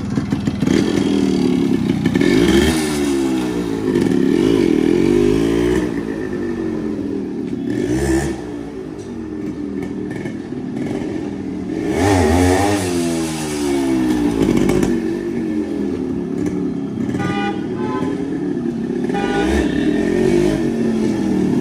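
Yamaha RX 100's two-stroke single-cylinder engine running and being revved up and down repeatedly, its note rising and falling with each blip of the throttle. Its carburettor and spark plug have just been cleaned to cure a persistent misfire, and its silencer still has the baffle mesh fitted.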